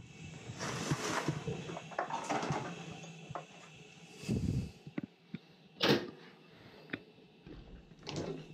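Scattered clicks, knocks and rustles of hands handling the gas piping and test-hose fittings at the base of a gas boiler, the sharpest click about six seconds in. A low hum dies away over the first few seconds as the boiler is shut off.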